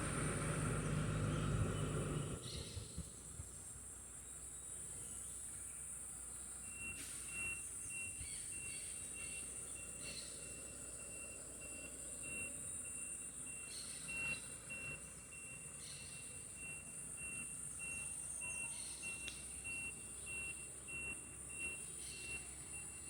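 Outdoor insect chorus: a steady high buzz throughout, joined about seven seconds in by an evenly repeated high chirp about twice a second, with a few faint bird-like chirps. A low engine-like hum runs for the first two seconds, then stops.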